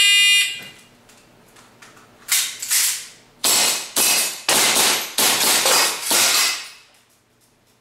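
An IPSC shot timer's start beep, then about eight shots in quick succession from a CO2-powered gas blowback airsoft pistol with a steel slide, fired over roughly four seconds.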